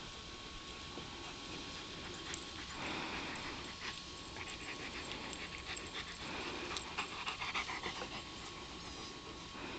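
White Shepherd dog panting in bouts, loudest about two-thirds of the way through.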